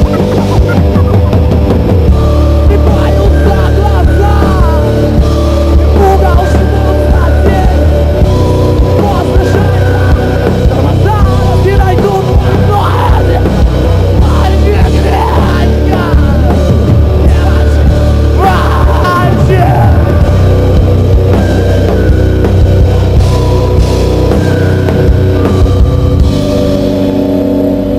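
A rock band playing heavy rock live and loud: drums, bass and guitars.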